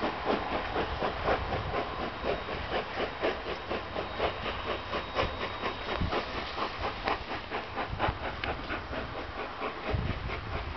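Steam locomotive A428 pulling away, its exhaust chuffing in a steady beat of about three a second over a constant steam hiss.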